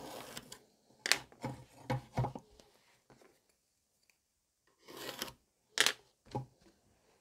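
Pencil scratching briefly along the edge of a metal square on a wooden board, then a knock and rubbing as the square is flipped over and laid back down. After a quiet spell come a short scrape and a couple of sharp taps on the wood near the end.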